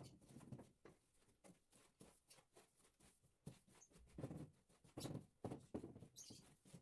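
Near silence broken by faint scattered taps and scrapes from hands working at the floor, with a few louder rustles about four and five seconds in.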